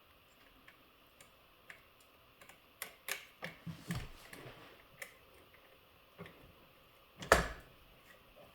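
Scattered small clicks and taps of a hex key and small metal parts being handled while a tiny screw is driven into an RC loader's track assembly, busiest a few seconds in, with one sharper knock about seven seconds in.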